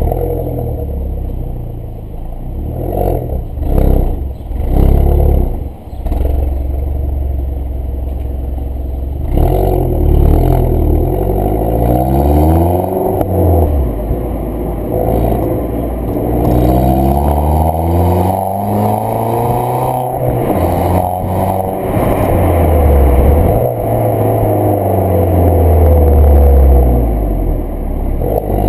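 Exhaust of an Audi A3 8P 1.4 TFSI turbocharged four-cylinder, running with a dummy pipe in place of the middle silencer and the original rear silencer. The engine is revved: a few short blips in the first seconds, then repeated longer rises and falls in pitch.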